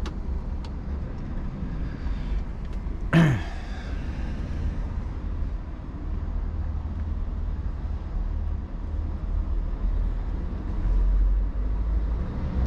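Scania 520 hp V8 truck driving, heard from inside the cab as a steady low rumble. One brief, loud falling swish cuts across it about three seconds in.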